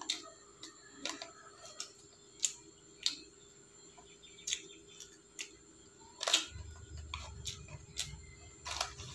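Close-up eating sounds of Jollibee French fries: scattered wet mouth clicks, smacks and small crunches, roughly one every half second to second, with the paper fry bag crinkling. A low rumble joins about six and a half seconds in.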